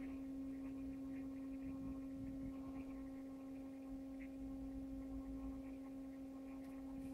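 Steady low electrical hum with fainter higher overtones, and faint scattered ticks over it.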